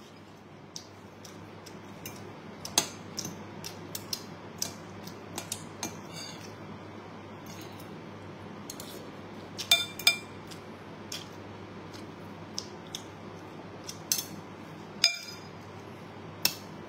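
A metal spoon and fork clinking and scraping against a ceramic bowl during eating, in irregular sharp clinks, with the loudest pair about ten seconds in and a few more near the end.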